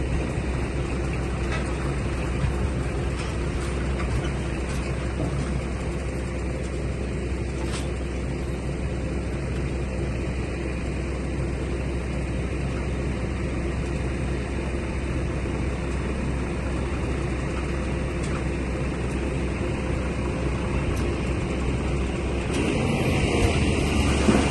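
Heavy diesel engine running steadily with a low, even hum; the sound grows louder and rougher near the end.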